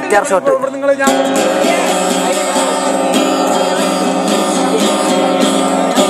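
Acoustic guitar music: plucked notes ringing over a steady chord pattern, with a regular pulse of new notes from about a second in.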